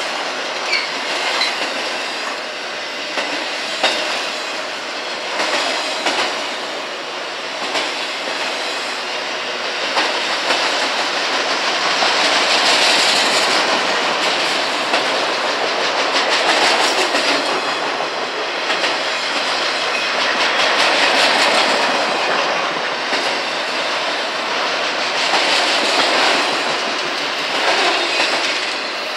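Freight train of autorack cars rolling past close by: a steady rumble of wheels on rail, with the clickety-clack of wheels over rail joints, growing louder at times.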